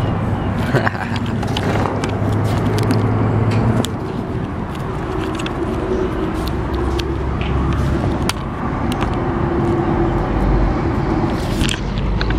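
A motor vehicle's engine running steadily, its low hum shifting in pitch about four seconds in, with scattered sharp clicks over it.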